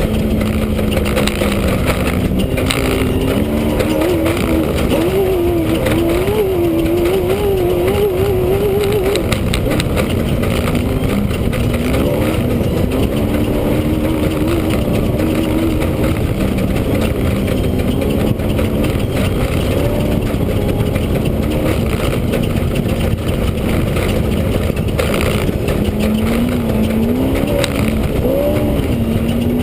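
Off-road race vehicle's engine running hard, heard from inside the cockpit, its pitch rising and falling over and over with the throttle, over a constant noise of wind and rattling.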